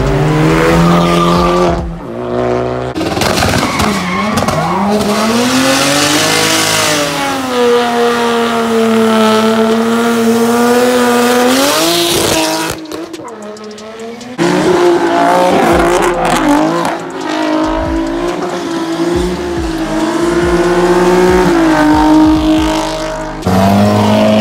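Cars drifting: engines held at high revs, the pitch rising and falling as the throttle is worked, with tyre squeal. The sound dips briefly about halfway through, then another car comes in revving.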